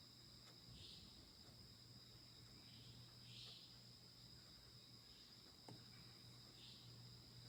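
Faint, steady, high-pitched insect chorus, with soft short chirps every second or two and a low steady hum beneath.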